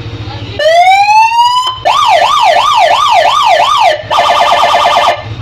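Electronic police-escort siren run through three tones: a rising wail for about a second, then a fast up-and-down yelp of about two and a half sweeps a second, then after a short break a rapid warble. Loud.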